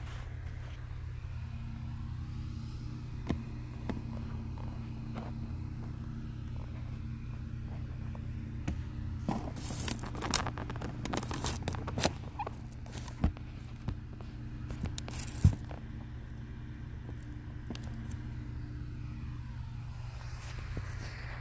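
A person snoring in sleep over a steady low hum. A run of sharp clicks and knocks comes in the middle, the loudest about two-thirds of the way through.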